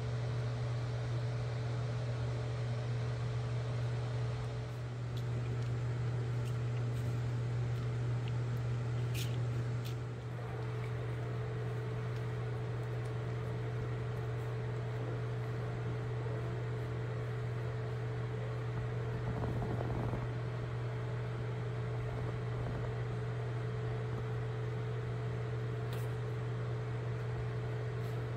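A steady low hum with a fainter, higher steady tone above it and a light hiss.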